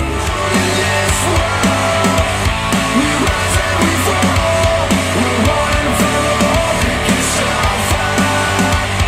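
Instrumental rock music with a steady beat, played back through Monitor Audio Bronze 100 bookshelf speakers driven by a Cambridge Audio CXA81 integrated amplifier.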